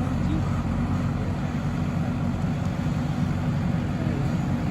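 Diesel engine of a JCB 3DX backhoe loader running steadily at work, a low even drone with no breaks.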